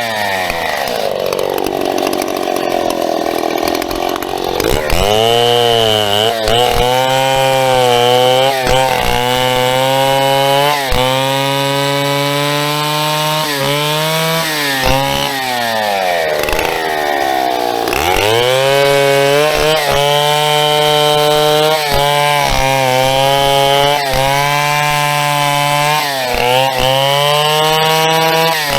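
Vintage Stihl two-stroke chainsaw cutting a birch stem, the engine running hard and its pitch sagging under load in the cut and climbing back again, with deep drops about a second in and again around two-thirds through.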